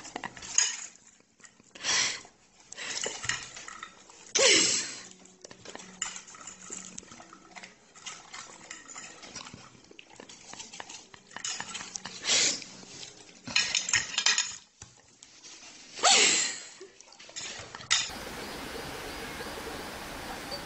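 A fork clinking and scraping on a ceramic plate, with several louder scrapes spread through it. About three seconds before the end this gives way to a steady outdoor hiss.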